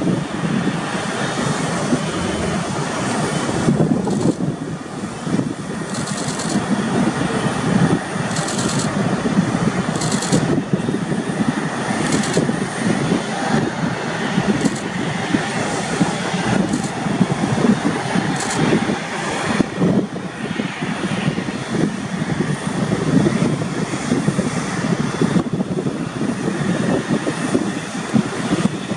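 Jet engines of an Airbus A330 MRTT tanker running at low power as it taxis: a steady, rough low rumble with a few brief hissy patches.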